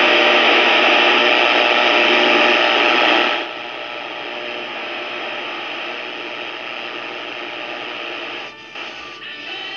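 Philips three-band portable radio tuned between stations, giving out loud static hiss. After about three and a half seconds the hiss drops to a quieter, rougher noise with a weak station faintly coming through, and it cuts out briefly twice near the end.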